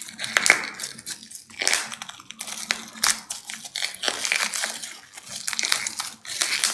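Plastic bubble wrap crinkling and rustling in irregular crackly bursts as gloved hands unwrap it.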